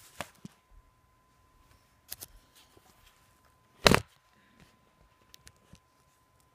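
Plastic snap clips of a Lenovo Ideapad Z410 laptop's bottom cover clicking loose as it is pried off along the sides: scattered small clicks, with one loud snap about four seconds in.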